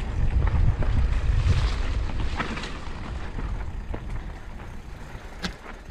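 Wind rumbling on the camera microphone while a mountain bike runs down a dirt singletrack, with scattered clicks and rattles. The rumble eases after about two seconds.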